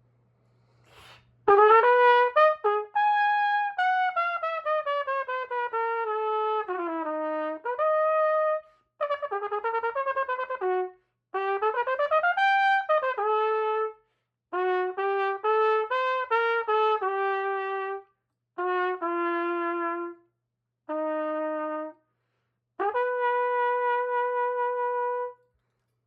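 Solo trumpet played in about eight short phrases with brief pauses between them, mostly stepwise runs up and down, ending on one long held note.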